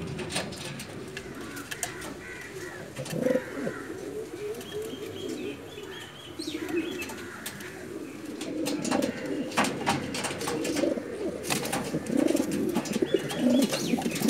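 Several Modena pigeons cooing: repeated low, rolling coos that grow louder in the second half. Scattered sharp clicks and a few faint, short high chirps are mixed in.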